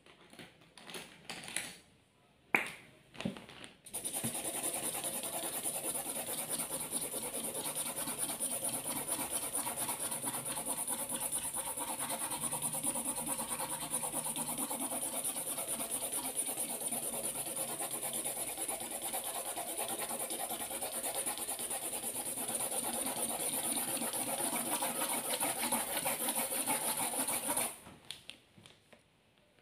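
Yellow Fonix marker scribbled rapidly back and forth on paper over a plastic board: a steady, dense scratching that starts about four seconds in and stops suddenly near the end. Before it, a few light handling clicks and one sharp click.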